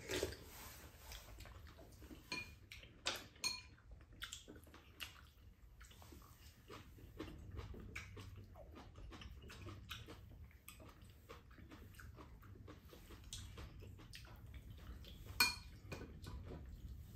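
Mealtime tableware sounds: chopsticks and spoons clicking and scraping against ceramic bowls and a pan, with a few ringing clinks, the loudest near the end.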